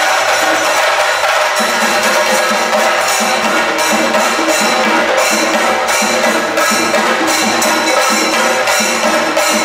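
Loud percussion-led Kerala folk music: chenda drums beating a fast, steady rhythm.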